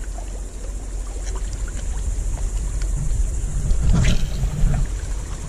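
Wind rumbling on the microphone over small waves washing against jetty rocks, with a brief swish about four seconds in as a fishing rod is cast.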